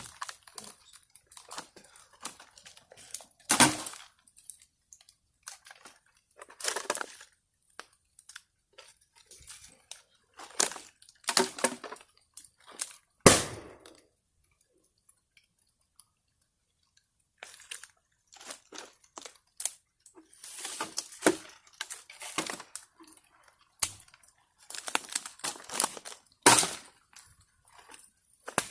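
Bonfire crackling with irregular sharp pops, three of them louder, about a third of the way in, about halfway, and near the end, and a short lull in between.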